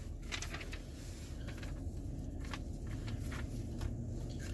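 Low, steady car-cabin rumble with a few faint clicks and rustles from handling a cardboard food box.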